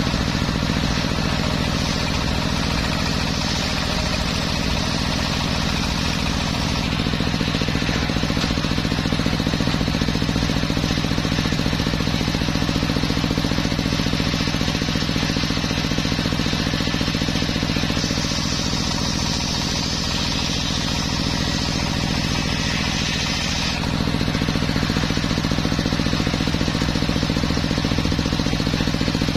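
Homemade circular sawmill running steadily, its blade sawing through teak wood. Under a constant machine hum, a high hiss from the cut strengthens and eases a few times.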